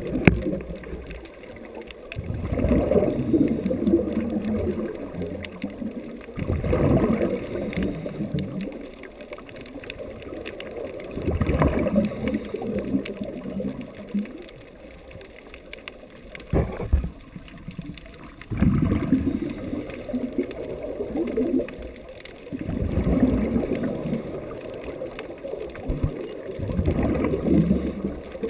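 Scuba regulator exhaust bubbles gurgling underwater as a diver breathes out, in swells every four to five seconds with quieter gaps between breaths.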